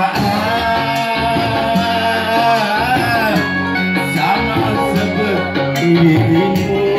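Live music through a PA: a man sings into a microphone over keyboard and guitar-like accompaniment.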